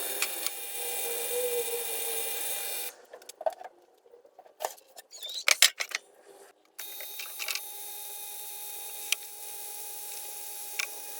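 Small electric machine-tool motor running with a steady whine. It gives way about three seconds in to a few seconds of scattered clicks and knocks, then runs steadily again from about seven seconds, with an occasional tick.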